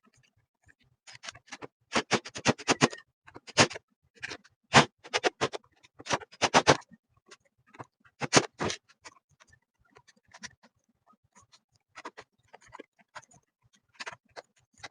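Irregular clicks and clacks of metal parts and screws being handled during assembly of a metal appliance stand, some in quick runs of several clicks.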